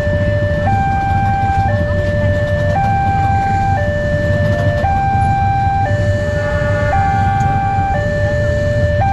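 Railway level-crossing warning alarm sounding a two-tone hi-lo siren, switching between a lower and a higher tone about once a second, over a steady low rumble.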